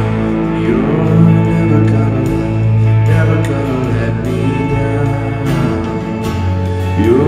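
Live band playing a worship song: acoustic guitar, electric bass, piano and drums, with singing over it.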